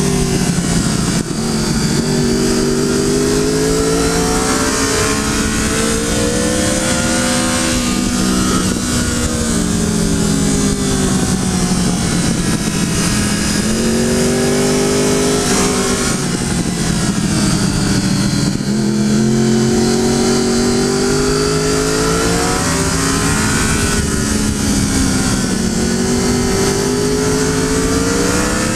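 Triumph Daytona 675's inline three-cylinder engine heard from the rider's seat, revs climbing steadily and dropping back about four times as the bike is ridden hard through a run of corners, over a steady rush of wind.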